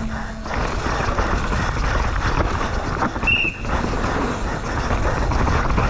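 Downhill mountain bike at race speed on rough dirt: wind rushing over the GoPro's microphone mixed with tyre and chassis clatter over roots and rocks. About three seconds in, a brief shrill tone cuts through.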